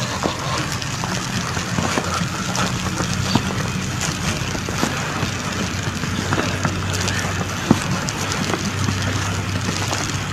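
Steady outdoor street noise on a phone microphone: an even hiss over a low hum, with scattered crackles and clicks.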